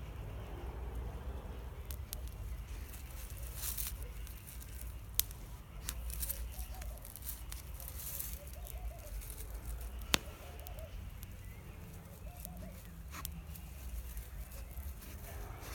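Campfire crackling, with scattered small clicks and two sharp pops about five and ten seconds in, over a low steady rumble.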